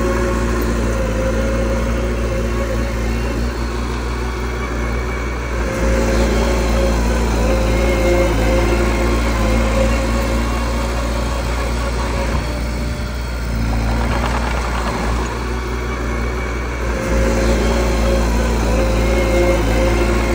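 Small bulldozer's diesel engine running steadily, its tone and level shifting about six seconds in and again near the end.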